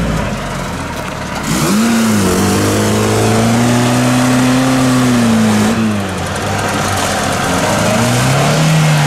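Car engine revving hard under load on an off-road climb. The pitch rises about a second and a half in, holds high for several seconds, drops, then rises again near the end.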